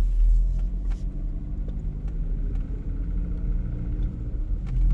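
Car engine running cold, with a deep low rumble under a steady engine hum, a little quieter in the middle. The owner takes this cold-engine rumble for an abnormal noise, not a normal one.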